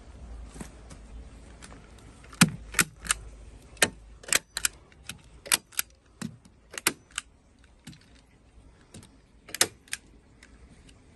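Hand staple gun firing staples through pond underlay into the timber sleeper edge: about a dozen sharp snaps in irregular quick runs, starting about two seconds in, with a last one near the end.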